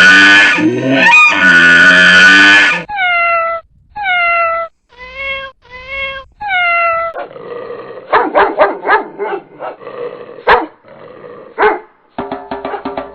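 Animal calls in quick succession: a long loud call that rises at its start, then five short yelping calls, each falling in pitch, then a patter of clicks and knocks. A fast, even tapping starts near the end.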